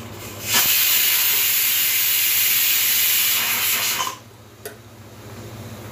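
Pressure cooker venting steam: a loud steady hiss that starts suddenly about half a second in and cuts off about four seconds in.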